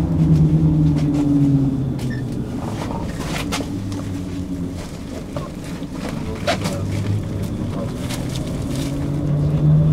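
Tram in motion, heard from inside the car: the drive hums with steady tones that shift a little in pitch, and sharp clicks and knocks come from the running gear, most of them between about three and seven seconds in.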